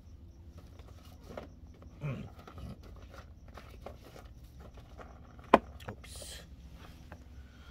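Small objects being handled on a workbench: scattered light clicks and taps, one sharp click about five and a half seconds in, then a brief rustle, over a steady low hum.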